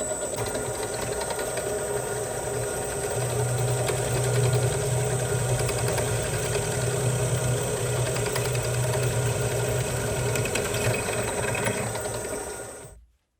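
A shop power tool's electric motor running steadily with a constant hum. It gets a little louder about three seconds in and cuts off abruptly near the end.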